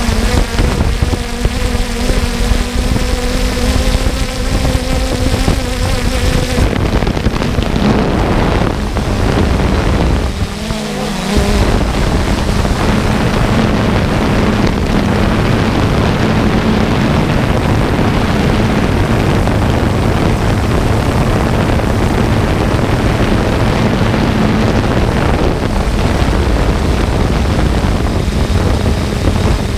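A drone's electric motors and propellers whine steadily, heard through the camera mounted on it, with wind rushing over the microphone. About seven seconds in, the wind noise grows and covers most of the whine.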